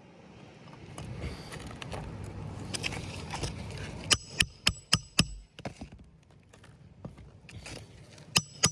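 A rustling, scraping noise, then a hammer driving roofing nails into asphalt shingles: four quick strikes a little past four seconds in, and another quick run of strikes starting near the end.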